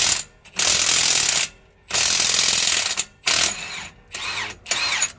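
Milwaukee 2767 M18 Fuel high-torque 1/2-inch cordless impact wrench hammering on a truck wheel nut through a 41 mm socket, in repeated trigger bursts. There are two longer runs of about a second each, then three short bursts in which the motor's whine rises and falls.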